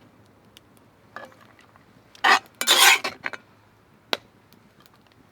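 A metal utensil clinking and scraping in a Dutch oven of pasta: scattered light clinks, two longer scrapes a little past halfway, and one sharp clink about four seconds in.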